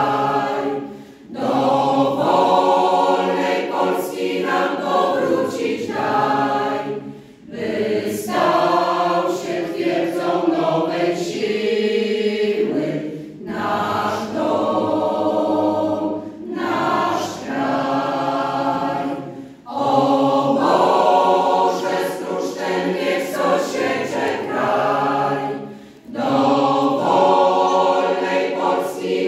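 Mixed choir of women's and men's voices singing without accompaniment, in long phrases broken by short pauses for breath.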